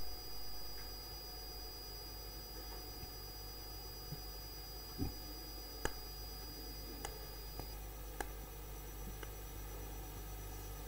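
Faint room tone in a pause between speech: a steady low hum and a thin high whine that stops about two-thirds through, with a few soft clicks.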